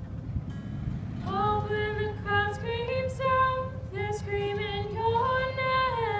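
A female voice singing long held notes, starting about a second in, over a steady low rumble.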